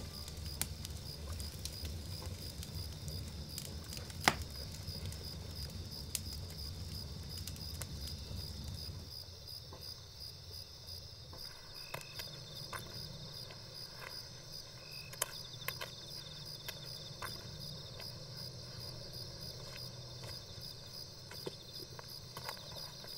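Crickets chirping steadily as a night-time field ambience. A low rumble runs under it for the first nine seconds and then stops, and a sharp click sounds about four seconds in.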